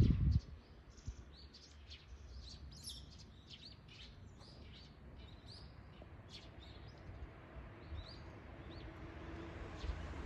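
Small birds chirping, many quick short high calls overlapping one another, thinning out and stopping about eight seconds in. A short low thump comes at the very start.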